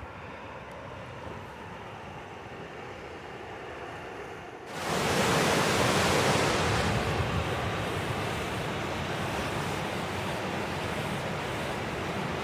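Steady rush of a swollen mountain stream in high water, mixed with wind. About five seconds in it jumps suddenly much louder and stays loud.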